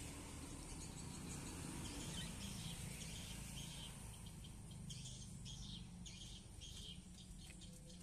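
Lovebirds chirping: short, high calls repeated many times, coming thickest a little past the middle, over a faint steady low hum.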